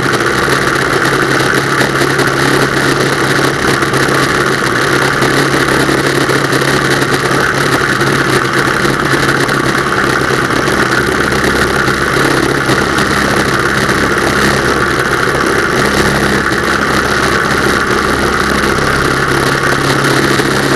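Pietenpol Air Camper's engine and propeller running steadily in flight, with heavy wind rush over a camera mounted outside under the wing.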